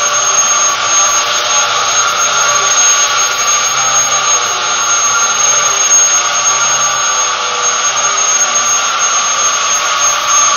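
Vacuum cleaner running steadily and loudly, a constant motor whine over a rushing hiss.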